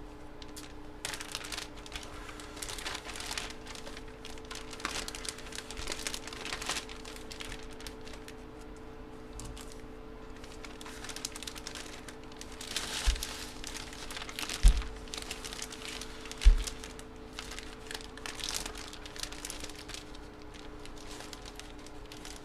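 Plastic bag crinkling and rustling as it is handled, with a few dull knocks in the middle.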